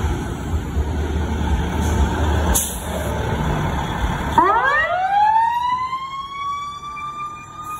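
Fire engine's diesel engine running with a low rumble as the rig pulls out, with a short hiss about two and a half seconds in. A little over halfway through, its siren starts low, sweeps up quickly in pitch and then holds high, still creeping upward.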